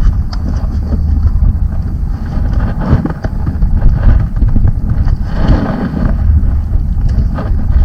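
Wind buffeting the microphone on an open boat: a loud, gusting low rumble with a few small knocks.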